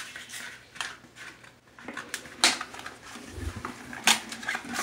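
A few scattered sharp clicks and knocks of small hard parts being handled, as the plastic flange repair pieces and bolts are worked at the toilet flange, with one dull low thump just past the middle.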